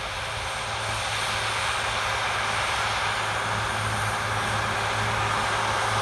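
Heavy farm machine engine running steadily: an even, unbroken noise over a low hum.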